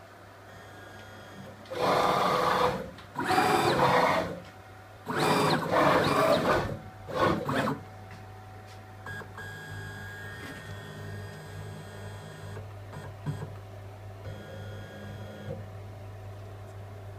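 CNC machine's stepper-driven axes making four quick moves in the first eight seconds, each a loud burst of motor noise rising then falling in pitch. After these, the machine settles into a quieter, steady whine of fixed tones over a low hum.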